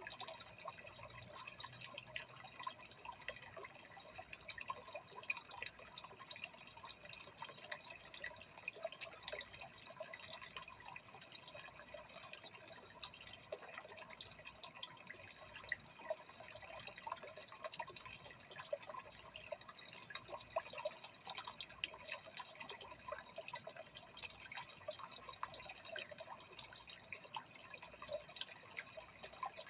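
Freshwater aquarium water circulating: a faint, steady patter of small drips and bubbles at the water surface.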